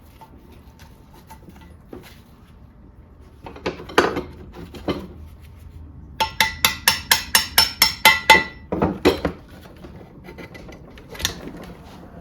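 Metal-on-metal knocking at a stuck valve in a small-block Chevy cylinder head: a few separate knocks, then a fast run of about a dozen ringing taps, about six a second, lasting a couple of seconds in the middle, then a few more knocks. The valve is seized in its guide and won't come out.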